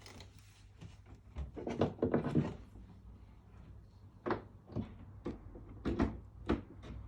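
Handling knocks and clicks from an opened cooktop being held and switched back on at the power: a short clatter about a second and a half in, then about five sharp knocks over the last few seconds.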